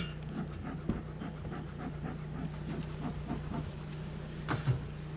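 Honeybees humming steadily as the wooden top cover is lifted off the hive, with a knock of wood about a second in and another near the end.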